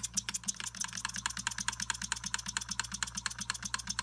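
Small model steam engine running on compressed air, its exhaust puffs and moving parts making a rapid, even ticking of about eight beats a second.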